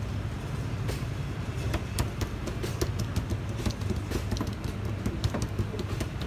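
Irregular light taps and slaps of hands pressing and spreading oiled roti dough on a steel counter, over a steady low hum.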